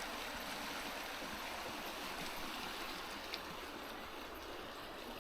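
River water flowing: a steady rush with no change, broken once by a brief faint click a little past halfway.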